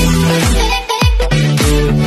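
Electronic background music with a steady beat and heavy bass, briefly cutting out about a second in.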